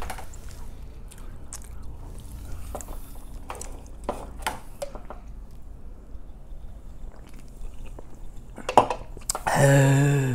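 Close-up eating sounds: chewing and small wet mouth clicks while drinking soda from a can. About nine seconds in there is a sharp click, then near the end a short, loud voiced sound from the eater.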